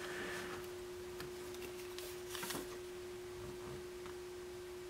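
Small DC loading motor of a single-disc Clarion CD mechanism running on a 6-volt bench supply, a faint steady whine of one pitch. It is wired with the polarity that does not draw the disc inwards.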